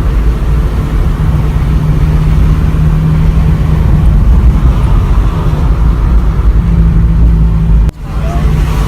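Car engine drone and road rumble from a moving car, steady and loud, with a sudden cut to a similar rumble about eight seconds in.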